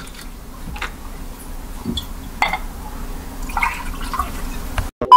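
Whisky poured from a glass bottle into a cut-glass tumbler, with small clinks and knocks of glass. The sound cuts off suddenly near the end.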